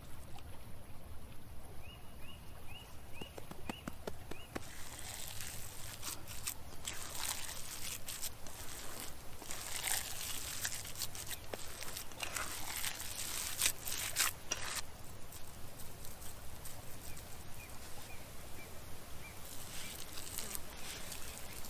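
Bare hands kneading raw minced meat with spices in a bowl: wet squishing and squelching in irregular bursts, busiest through the middle.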